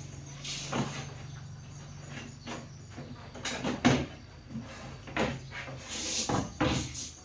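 A handful of separate knocks and clatters, the loudest about four seconds in, over a low steady hum that stops about two-thirds of the way through.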